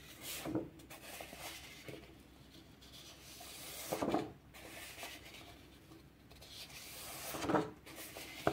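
Sheets of paper being handled and slid aside one after another: three soft rubbing swishes a few seconds apart.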